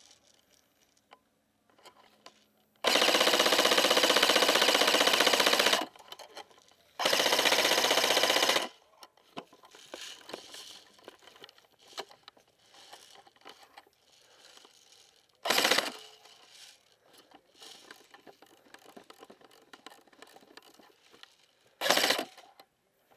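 Airsoft electric rifle firing on full auto: a long burst of about three seconds, then another of about a second and a half, and later two short bursts, with rustling and footsteps between.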